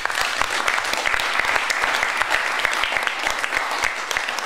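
A group of people applauding: dense, even hand-clapping at a steady level.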